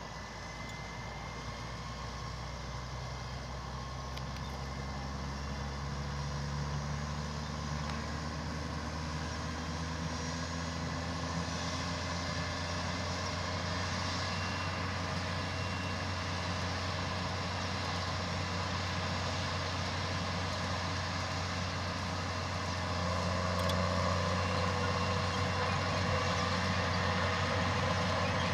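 New Holland T7 tractor engine running steadily under load, pulling a Schuitemaker Rapide self-loading forage wagon whose pickup is gathering grass. The sound grows gradually louder and steps up again about three-quarters of the way through.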